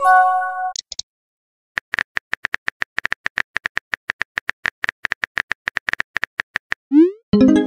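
Phone messaging-app sound effects. A message-arrival chime rings at the start. Then come simulated keyboard tap clicks, steady at about five a second, as a reply is typed. Near the end a rising whoosh of a message being sent is followed by another chime.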